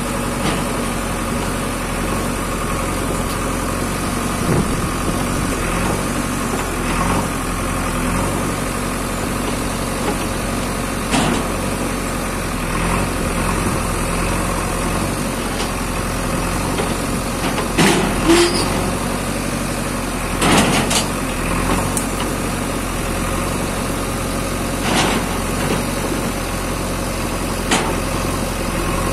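JCB backhoe loader's diesel engine running steadily while its bucket works a mud-stuck tractor trolley, with a handful of sharp knocks scattered through, the loudest a cluster a little past the middle.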